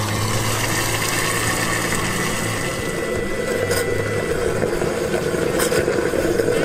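Diesel fuel being pumped through a filling-station nozzle into a pickup truck's tank: a steady hum with the rush of fuel flowing into the filler neck.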